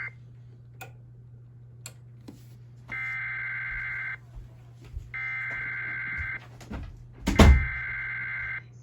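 Emergency Alert System SAME header sent three times: harsh two-tone digital data bursts, each about a second and a quarter long, with short gaps between. A brief burst of the same tones sounds right at the start. A loud thump overlaps the start of the third burst, and a steady low hum runs underneath.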